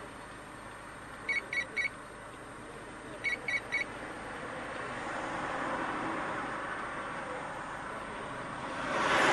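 Two sets of three short, high electronic beeps about two seconds apart, over steady street traffic. Near the end a passing vehicle swells up and becomes the loudest sound.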